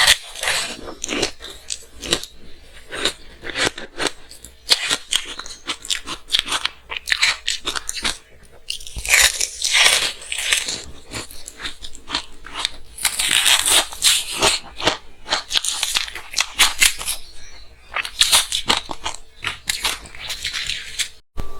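Close-miked biting and chewing of frozen matcha green tea ice: dense, crackling crunches that come in heavier runs every few seconds.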